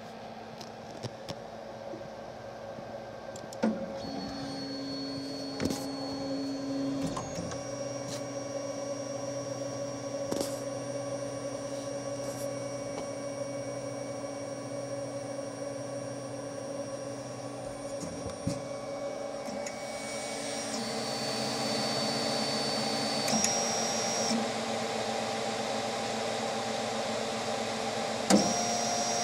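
FDM 3D printer running at the start of a print: its stepper motors whine in steady tones that change pitch in steps as the head and bed move, over the hum and hiss of its fans, with a few light clicks. The hiss grows louder about twenty seconds in.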